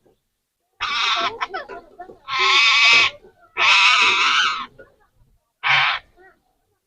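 Parrot squawking: four loud, raspy calls, the middle two each about a second long and the last one short.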